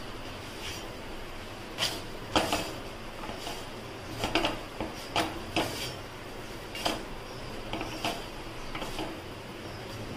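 A muslin cloth pressed and rubbed over a wheat khakhra on a hot tawa, making about a dozen short, irregular scraping rustles over a steady hiss.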